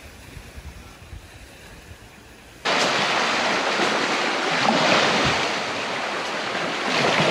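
Faint low wind rumble at first. About two and a half seconds in it switches abruptly to a loud, steady rush of small waves breaking on a pebbly lake shore against beached canoes, with wind buffeting the microphone.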